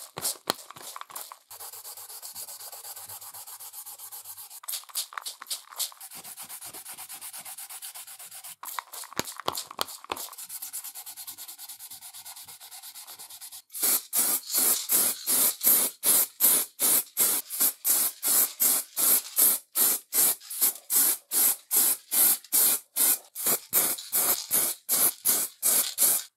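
Wet sanding on the grinder's painted cast-iron base, a soft, even scrubbing. About halfway through it gives way to a paint spray gun laying on a two-component top coat, a loud hiss in short repeated bursts, about two a second.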